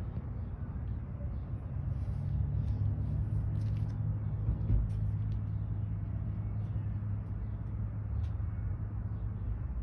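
A steady low rumble, with a few faint, short clicks scattered through it.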